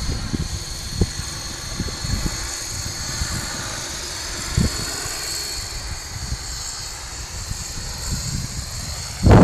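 Electric coaxial model helicopter in flight: the Z-Power Z30 brushless motor and drive give a steady high whine over the rotor noise of its two contra-rotating three-blade rotors. Irregular low thumps run underneath, with a loud thump just before the end.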